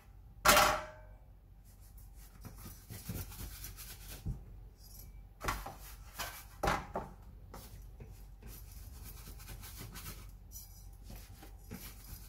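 A metal baking tray clanks down on a stone kitchen counter with a brief ring. It is followed by a plastic bench scraper scraping and rubbing over the floured tray and counter as raw dough loaves are lifted and set down, with a few light knocks.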